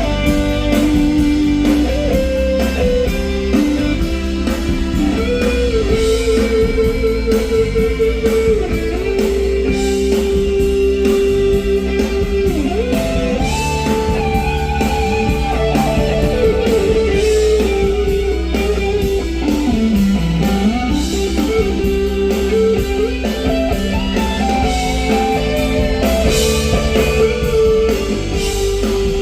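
Live rock band playing an instrumental section between sung choruses: an electric guitar plays a sustained lead melody with bent notes over drums and bass.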